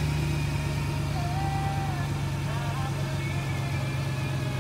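Mercedes C63 AMG's 6.2-litre V8 running steadily at a raised cold-start idle, heard from the open engine bay.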